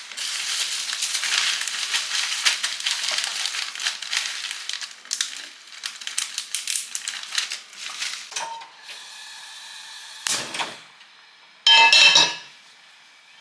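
Kitchen utensils and dishes clattering and scraping, dense for the first several seconds and then a few separate knocks, with a louder ringing clink near the end.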